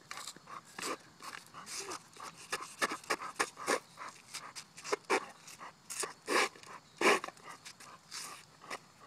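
A bulldog panting hard in short irregular breaths while nosing and mouthing a plastic frisbee flat on concrete, with scuffs of the frisbee against the ground; the loudest breaths come about five, six and a half and seven seconds in.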